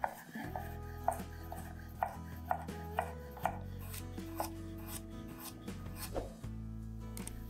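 A kitchen knife chopping vegetables on a cutting board, single strokes about once a second, unevenly spaced.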